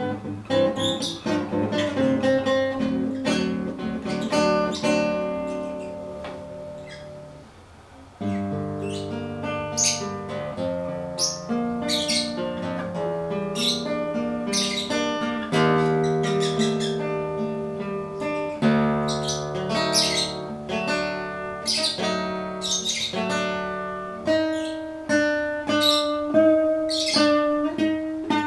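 Acoustic guitar playing a melody of plucked notes. The phrase fades about seven seconds in, and a new phrase starts a second later.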